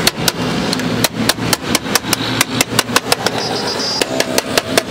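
Hammer blows on a car's steel rocker panel and floor, a quick steady run of about four to five strikes a second, with street traffic humming behind.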